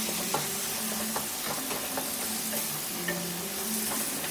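Wooden spatula stirring a thick mash of raw mango in mustard and poppy seed paste in a metal kadai, with scattered scrapes and knocks against the pan over a steady frying sizzle.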